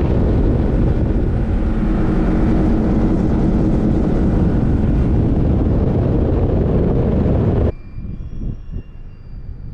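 A motorboat running fast across the water: the engine drones and wind and water rush past. The sound cuts off abruptly about three-quarters of the way through, leaving a much quieter background.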